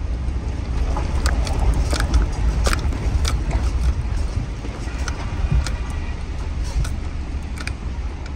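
Car driving over a rough gravel road, heard from inside the cabin: a steady low rumble of tyres and engine, with scattered sharp clicks and knocks, several in the first few seconds and one more near the end.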